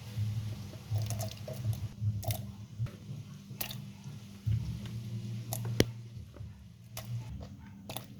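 Juice-making sounds: scattered clicks and knocks of kitchen items being handled, with wet squishing and dripping, over a low hum.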